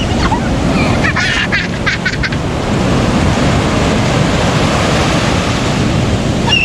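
Sea surf breaking and washing ashore in a steady rush, with wind on the microphone; a brief high-pitched sound about one to two seconds in.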